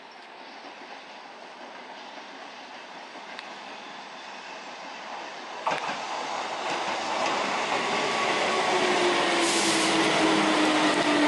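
Keihan Railway electric train approaching along the platform, its running noise swelling steadily louder. There is one sharp clack about halfway through and a whine that falls slightly in pitch near the end.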